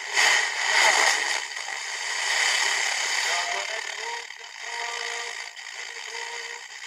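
Superregenerative FM radio receiver hissing as its tuning capacitor is turned off the music station, with short snatches of broadcast sound breaking through the hiss. The hiss is loudest in the first second or so.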